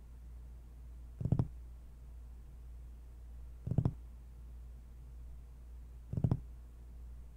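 Horror film soundtrack: a steady low drone with a short, muffled thudding pulse repeating about every two and a half seconds, three times.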